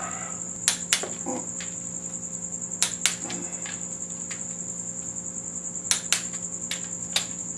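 Click-type torque wrench clicking as connecting rod nuts are tightened to their final 24 ft-lb: sharp clicks, mostly in quick pairs, every second or two, the sign that the set torque has been reached. A steady high-pitched whine sits under them.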